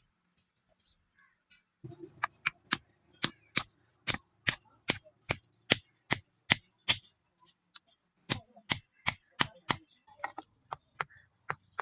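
Hand hammer striking steel on an anvil with a ringing clang, about two to three blows a second, starting about two seconds in; it is forging a machete blade from leaf-spring steel. The blows pause briefly, resume, and turn lighter near the end.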